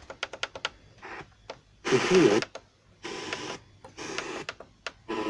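Portable radio being tuned through the band: a quick run of clicks, then short snatches of broadcast sound, each cut off after about half a second. One snatch, about two seconds in, is a voice.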